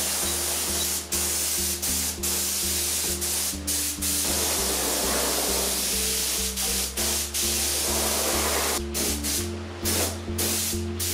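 Compressed-air paint spray gun spraying a coat onto a fibreglass panel: a steady hiss that cuts out briefly many times as the trigger is let off between passes. Background music with steady low notes plays underneath.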